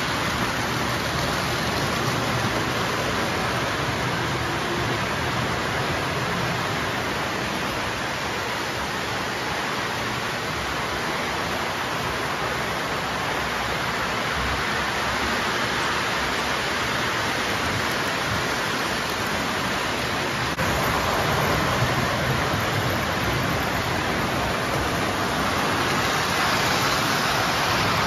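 Three-rail O-gauge model trains running on a layout: a steady rushing rumble of wheels and motors on metal track, a little louder about two-thirds of the way through.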